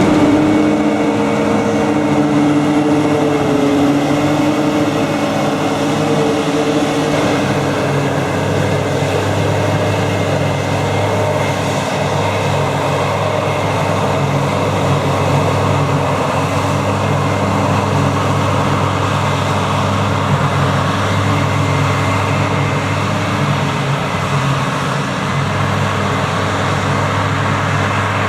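Diesel engines of farm harvesting machinery running steadily under load. A higher engine note fades over the first several seconds, leaving a steady low hum.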